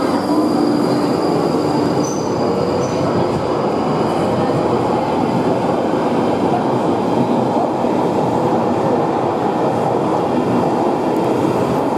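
London Underground Northern line 1995-stock tube train pulling out of a deep-level platform and gathering speed: a loud, steady rumble of wheels on rail in the platform tunnel.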